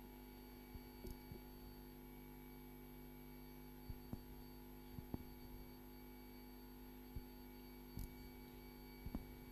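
Quiet, steady electrical hum with a few faint, scattered clicks.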